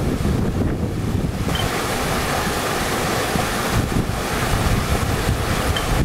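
Steady rushing noise of a river flowing over stones, mixed with wind buffeting the microphone, with a couple of faint small clicks.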